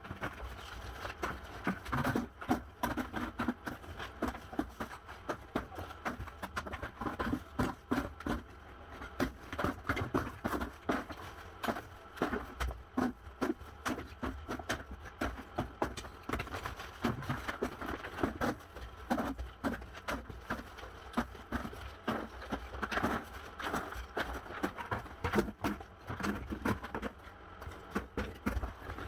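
Irregular knocking and clattering from hand demolition of a floor: many uneven impacts of tools and debris, with no steady machine rhythm.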